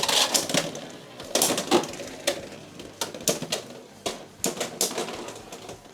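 Two Beyblade X spinning tops, Leon Claw 9-80 and Shark Edge 9-60 Low Flat, clashing in a plastic stadium. Their collisions make rapid, irregular sharp clacks that grow fainter and further apart toward the end.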